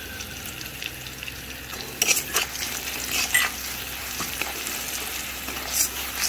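Ground turmeric and chilli powder sizzling in hot oil in a metal kadai while a metal spatula stirs them. The spatula scrapes across the pan bottom in repeated strokes from about two seconds in.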